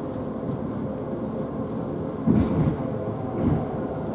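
Tateyama Tunnel Trolleybus 8000-series electric trolleybus running through the tunnel, heard from inside the cabin: a steady low running noise with a faint steady hum, and a brief louder rumble a little over two seconds in.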